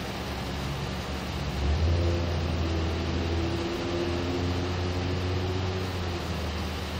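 Low, steady vehicle engine rumble under a constant hiss. It grows louder about two seconds in and then holds, with a faint hum over it for a few seconds.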